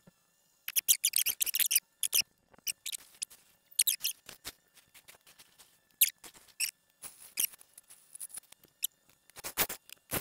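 Turning gouge cutting into a spinning Laurel Oak hat blank on a wood lathe, in short, uneven bursts of high-pitched scraping as shavings come off, loudest about a second in and again around six seconds.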